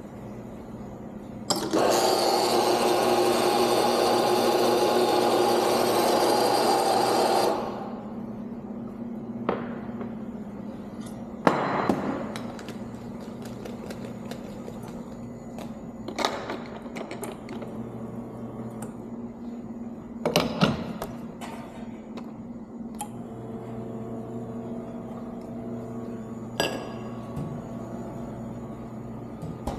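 Espresso grinder motor running for about six seconds, then sharp knocks and metal clatter as the portafilter is handled, over the steady hum of the espresso machine.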